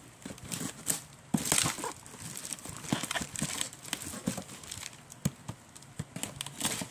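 Plastic wrap crinkling and a cardboard box being handled and opened: scattered clicks and knocks with short bursts of rustling, the loudest about a second and a half in.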